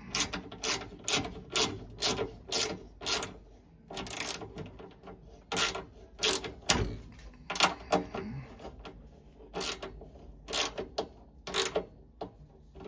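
Small Wera ratchet clicking as the burner-door nuts are tightened. The clicks come in quick, even strokes, about two a second, for the first few seconds, then more irregularly with pauses.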